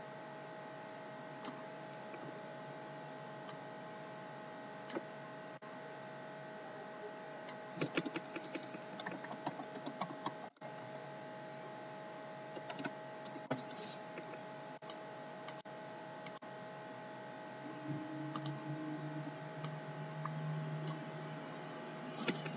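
Scattered computer mouse and keyboard clicks, with a cluster of them about a third of the way in, over a faint steady electrical hum. A low drone joins near the end.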